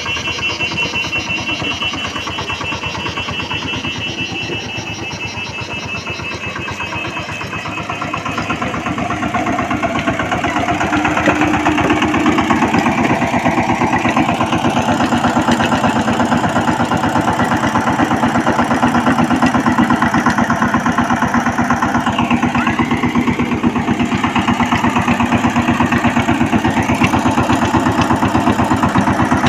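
Power tiller engine running steadily; it gets louder about ten seconds in.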